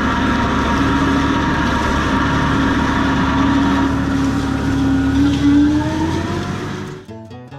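John Deere four-wheel-drive tractor engine running steadily under tillage load, its hum rising in pitch about five seconds in. It cuts off suddenly near the end, and music starts.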